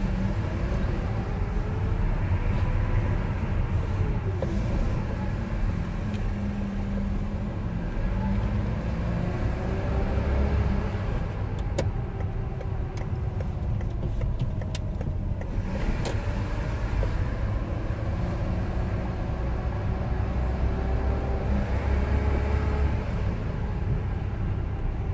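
A car driving slowly, heard from inside the cabin: a steady low engine and road rumble whose pitch wavers as it moves, with a few sharp clicks around the middle.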